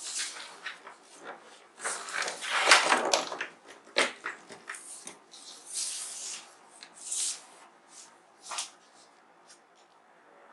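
Irregular scraping, rustling and sharp clicks of a plastic keyboard casing being handled and fitted back on, busier in the first few seconds and sparser towards the end.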